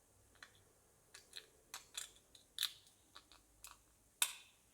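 Small 3D-printed plastic parts clicking and scraping against each other as they are fitted together by hand, a dozen or so short clicks, the sharpest near the end.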